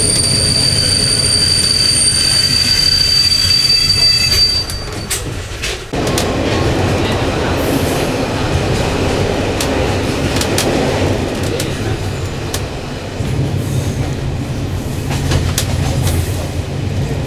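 Old passenger coach running on rails, heard from inside: the wheels squeal in a high steady whine that fades out about four seconds in, then a few sharp clicks from the rail joints and, from about six seconds in, a louder rumble as the train crosses a bridge.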